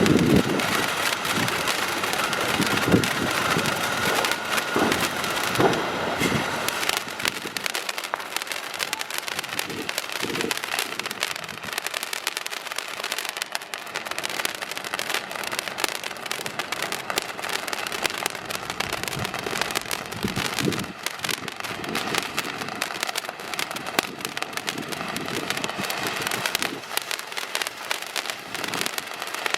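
A large consumer firework burning continuously: a dense, steady crackling hiss, with a faint whistle and a few low thuds in the first several seconds.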